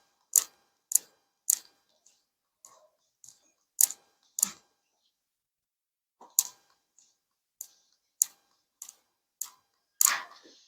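Sharp, short clicks repeating evenly about every 0.6 seconds, with a pause near the middle.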